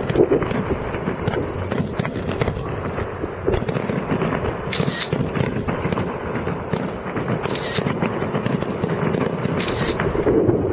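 Fireworks display: a dense, continuous run of bursts and crackling, with short high crackling spells about five, seven and a half and ten seconds in.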